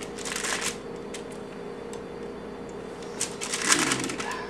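Wax paper crinkling and rustling as no-bake cookies are peeled off it and lifted, in two spells: a short one at the start and a longer, louder one from about three seconds in.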